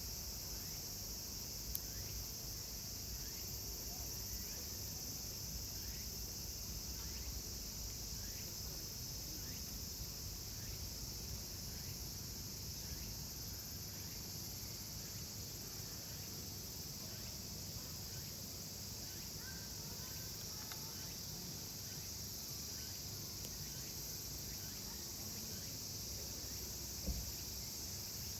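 Steady, unbroken chorus of insects shrilling high, with two sharp clicks, one about two seconds in and one near the end.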